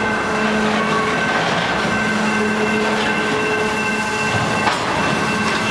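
Canadian Pacific freight train's cars rolling slowly as the train brakes to a stop. Steady squealing tones from the wheels and brakes come and go over the rumble, with one sharp clank near the end.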